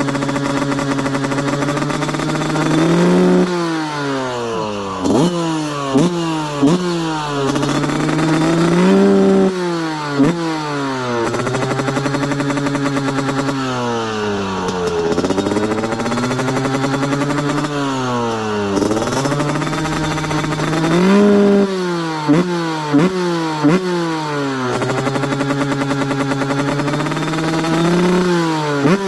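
Husqvarna SM/CR125 two-stroke single, fitted with a CR 7T cylinder, HTM head and Keihin 36 carburettor, revving hard under way. Its pitch repeatedly climbs and drops sharply, as when shifting up through the gears, with stretches of steadier running and slowing between.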